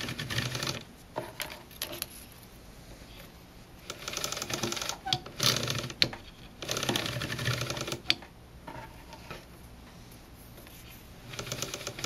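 Ratchet on a table loom's back warp beam clicking rapidly as the beam is cranked round in short spells, winding the warp on under tension. There are three main bursts of clicking, about a second in, at about four to six seconds, and at about seven seconds.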